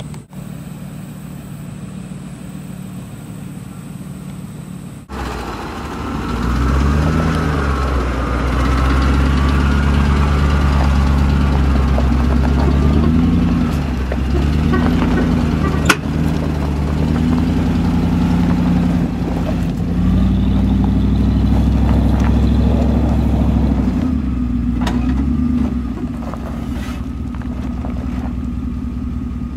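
A Ford F-150 FX4 pickup's engine idles, then, after a cut, revs hard over and over, rising and falling in pitch many times as the truck struggles for grip on a steep slope of loose rock and mud, its tyres churning in the rock. One sharp knock stands out about halfway through.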